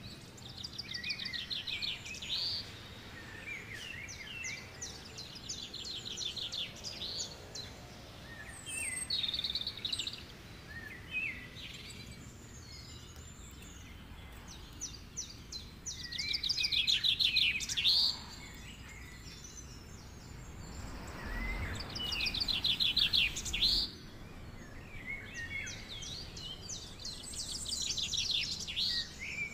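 Small birds chirping and singing, with fast high trills that recur every few seconds.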